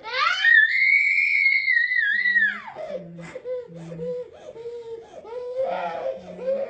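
A cat crying: one long, high yowl that rises, holds for about two seconds and falls away, followed by a run of short, lower mewing cries.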